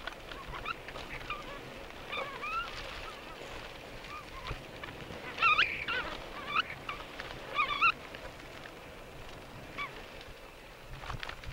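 Bicycle brakes squealing in short, pitched, honk-like bursts while riding down a dirt forest trail, over the low rumble of tyres on dirt. The loudest squeals come in the middle, the last near eight seconds in.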